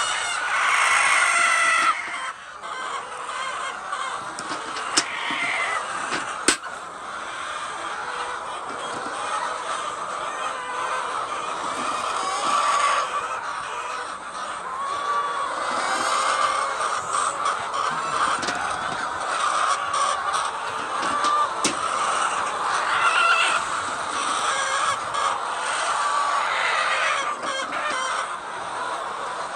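A large flock of hens clucking and calling continuously all together, with two sharp clicks a second and a half apart.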